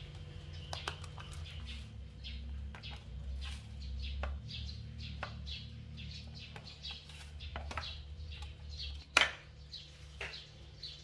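Small birds chirping repeatedly in the background over a steady low hum. One sharp knock about nine seconds in stands out as the loudest sound.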